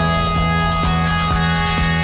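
Electronic background music with a steady beat of about two strokes a second over a held bass note.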